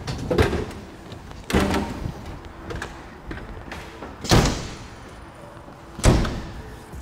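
Cab doors of a Pierce Velocity heavy rescue fire truck being shut: four door thuds, the two loudest about four and six seconds in.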